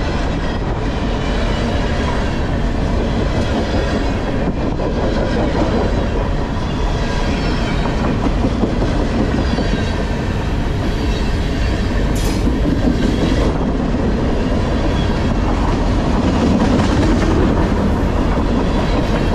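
Freight train's container flatcars rolling past close by: a steady, loud rumble and clatter of steel wheels on the rails, with a short sharp clank about twelve seconds in.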